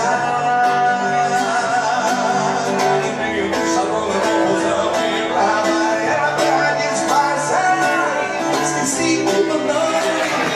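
Music with guitar and a melody of long held notes, playing steadily.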